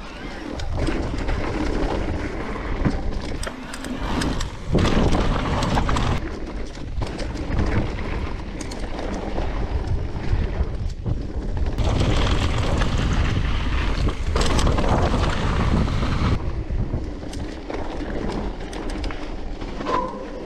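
Mountain bike riding a rough dirt trail: a continuous rush of tyre and wind noise, with many short clattering knocks from the bike over roots and rocks. The noise swells and dips as the speed changes.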